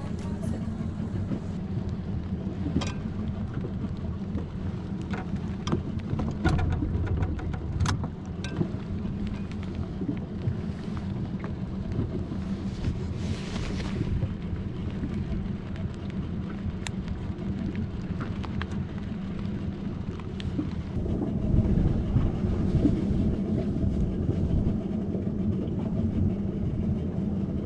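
Wind rumbling on the microphone aboard an open boat, over a steady low hum, with a few sharp ticks in the first third; the rumble grows louder about three quarters of the way through.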